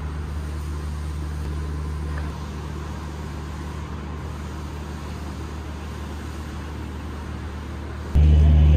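Steady low drone of an idling train diesel engine, which becomes much louder about eight seconds in.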